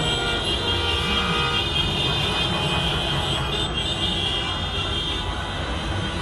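Many car horns honking at once, overlapping long steady blasts over the noise of engines and traffic.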